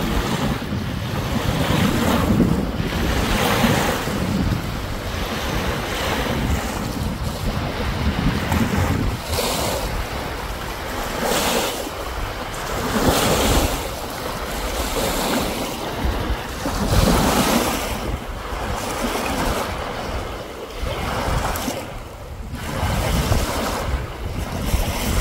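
Small Lake Superior waves washing up on a sandy beach, swelling and falling back every second or two, with wind buffeting the microphone.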